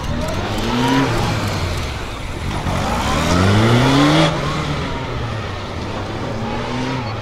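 Honda CB1300P police motorcycle's inline-four engine revving up in repeated rising bursts while riding a cone slalom. The longest, loudest climb in pitch comes about three to four seconds in and cuts off suddenly.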